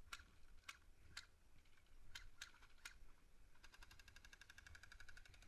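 Faint airsoft gunfire: several single shots spaced irregularly, then about two-thirds of the way in a rapid automatic burst of roughly fifteen shots a second that keeps going.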